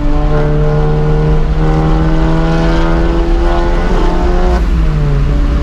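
Modified VW Golf GTI MK7's turbocharged four-cylinder engine, with an aftermarket downpipe and cat-back exhaust, running loud at steady revs while the car is driven. The note drops about four and a half seconds in.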